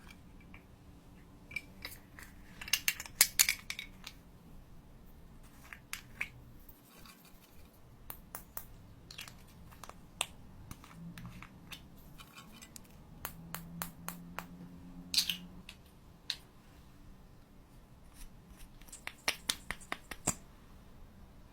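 Slime being squeezed and stretched by hand, making irregular small clicks, snaps and crackles, with louder clusters about three seconds in, around fifteen seconds in, and near the end.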